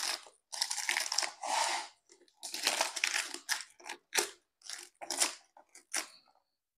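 Fresh banana leaves crackling and rustling as hands fold and press them down into an aluminium pot to line it, in irregular crunchy bursts.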